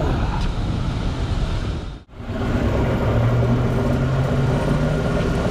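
2014 Kia Forte running in drive on a lift with the wheels spinning free, and a worn wheel bearing making a metal-on-metal rubbing noise. The sound drops out briefly about two seconds in, then returns as a steady hum.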